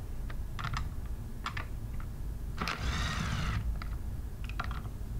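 Cordless 3/8-inch impact gun running for about a second as it backs a bolt out of the diaphragm pump's outer chamber, with scattered clicks and knocks of the tool and bolts before and after.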